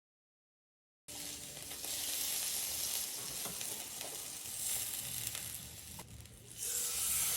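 After about a second of dead silence, marinated chicken breasts sizzling in a hot pan, a steady hiss that dips briefly near the end and comes back louder.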